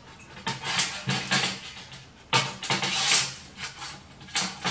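Hands handling a dead saury and its metal hook rig: rustling and scraping in a few short bursts as a hook is worked into the soft fish.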